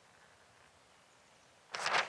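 Near silence, then near the end a brief rustle of a paper notebook page being turned.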